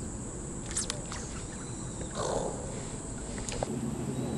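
Steady high-pitched insect chirring, with a few faint clicks and a short rough noise about two seconds in.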